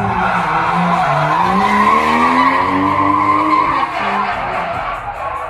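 Drift car sliding sideways, its tyres squealing without a break while the engine revs hard. The engine's pitch climbs for about two and a half seconds, then drops off just before four seconds in.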